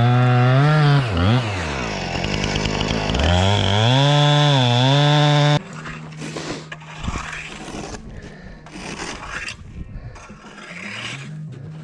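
Chainsaw running at high revs, its pitch dipping low and climbing back up, then cutting off abruptly just over halfway through; quieter mixed sound follows.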